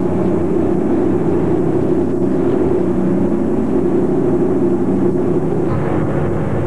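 Passenger ferry's engine droning steadily under way, a low hum over a rushing noise. Its tone shifts slightly about six seconds in.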